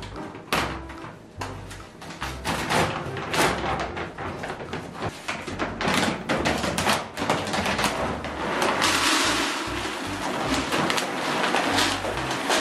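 Background music over the crinkle and rustle of plastic pet-food bags being handled. In the second half, dry cat kibble pours in a rush into a plastic storage bin.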